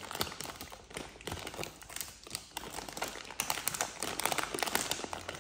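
Plastic packaging of small jelly cups crinkling and rustling as they are handled and a hand digs through the bag, a dense run of quick crackles.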